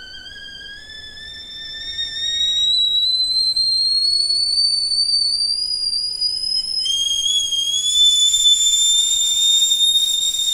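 Stainless-steel stovetop kettle whistling as it comes to the boil. Its note climbs slowly in pitch and grows much louder about two seconds in. About seven seconds in the note shifts abruptly and holds steady, with a hiss of steam under it.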